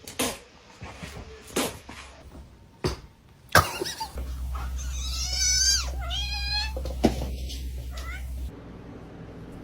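A cat meowing: one long, drawn-out call that wavers in pitch, about halfway through, with a few short knocks before it.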